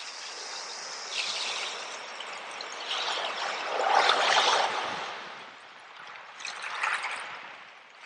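Small ocean waves breaking and washing up over a beach of seashells, with a hissing wash of foam. The loudest surge comes about halfway through and a smaller one near the end.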